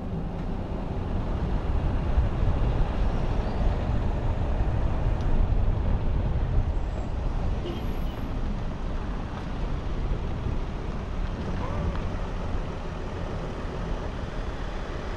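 Winnebago Revel 4x4 camper van on a Mercedes Sprinter chassis driving slowly, a steady mix of engine and road noise.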